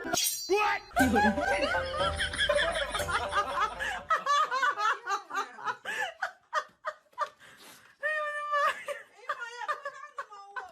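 People laughing in short, repeated bursts, several voices overlapping in the first few seconds and thinning out later.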